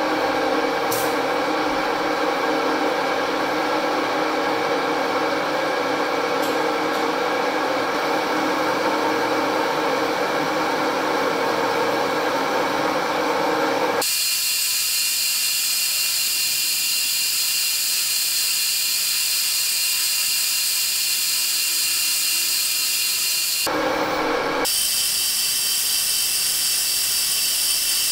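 Metal lathe running with a steel tube spinning in its chuck, a steady mechanical drone. About halfway through it switches abruptly to a high hissing whine as a boring bar cuts the inside of the tube. It briefly returns to the lower running sound for about a second before the high cutting hiss resumes.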